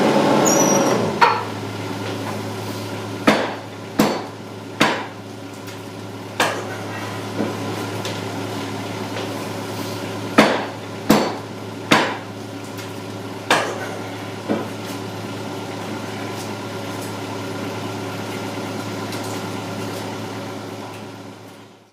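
About a dozen sharp, irregularly spaced knocks, like a hammer striking, over the steady hum of a running engine.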